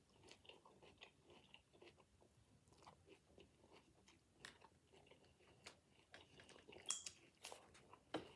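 A person chewing a salad close to the microphone: faint, irregular crunches and clicks, with a few sharper crunches in the second half.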